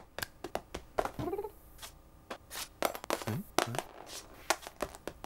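Cartoon cat sound effects: short cat grunts and a rising chirp, mixed with quick clicks and light clatters of small objects being batted across a hard floor.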